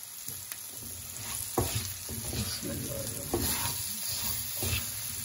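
Spatula stirring vegetable pieces through hot spiced oil in a wok, coating them in masala: a steady sizzle with the spatula scraping and knocking against the pan several times.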